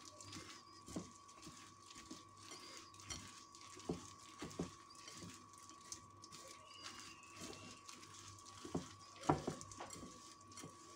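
Roasted peanut pieces and caramel being kneaded by a plastic-gloved hand in a ceramic bowl: faint, irregular crunching and rustling with a few louder knocks, the loudest about nine seconds in, over a faint steady high hum.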